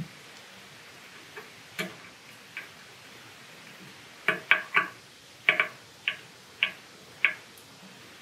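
Small screwdriver clicking on the terminal screw in the brass end cap of a CO2 laser tube as the wire connection is tightened: a couple of faint clicks, then a run of about eight sharper ticks roughly half a second apart in the second half.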